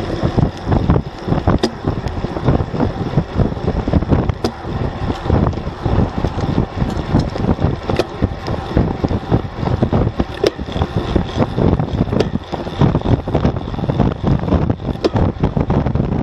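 Wind buffeting the microphone of a bike-mounted action camera on a moving road bicycle, with road and tyre noise underneath and a few sharp clicks scattered through.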